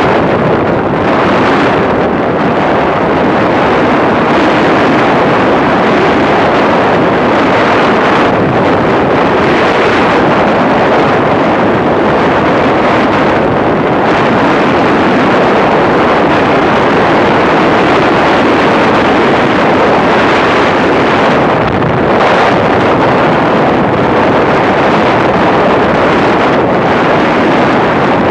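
Steady rush of wind over the microphone from a Yamaha YBR 125 motorcycle riding at road speed, with the bike's running and road noise blended into it. The noise stays even throughout.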